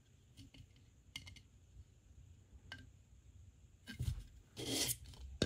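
Hands handling a thin-walled 3D-printed plastic lattice vase: a few faint soft clicks, then about four seconds in a couple of louder rustling scrapes as the vase is turned and squeezed.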